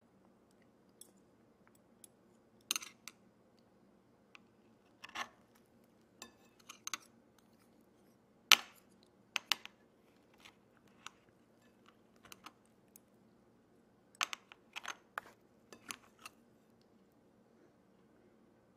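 Metal fork and chopsticks clicking and scraping against a ceramic plate while cutting and lifting food: scattered sharp clinks in small clusters, the loudest about eight and a half seconds in.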